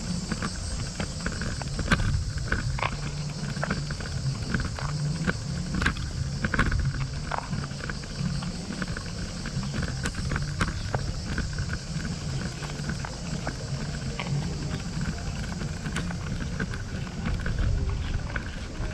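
Wind rumbling on the microphone of a camera carried on a moving bicycle, with a steady high hiss over it and scattered light clicks and rattles.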